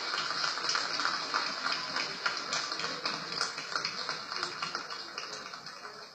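Crowd applauding, a dense patter of clapping that dies away over the last couple of seconds.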